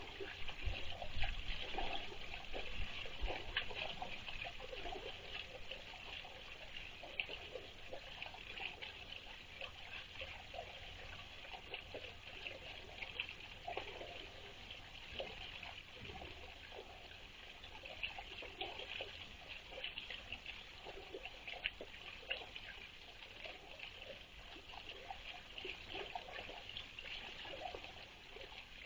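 Water trickling steadily into a small rock-edged pond, a faint unbroken flowing sound.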